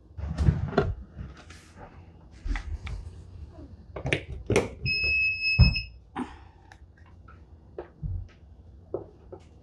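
Nurture Right 360 egg incubator's control panel giving one steady electronic beep about five seconds in, as the unit is switched on and its display lights up. Around it, scattered knocks and clicks of the unit being handled.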